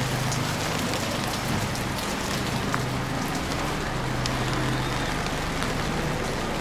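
Steady rain falling on an open umbrella overhead, with many scattered sharp drop ticks over an even hiss and a steady low hum underneath.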